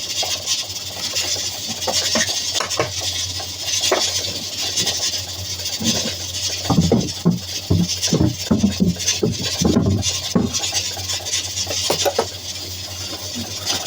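Kitchen food-prep handling: scattered knocks, clicks and rattles of utensils and dishes while ground fish meat is handled, over a steady background hiss and low hum.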